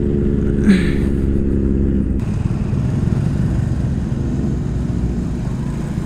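KTM 390 Adventure's single-cylinder engine running at a steady note, then, about two seconds in, the note breaks up into a rougher, lower sound as the throttle is closed and the bike slows for a turn.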